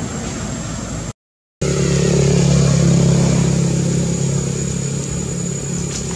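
A vehicle engine idling steadily, a low even hum. It comes in loud after the sound cuts out for half a second, about a second and a half in.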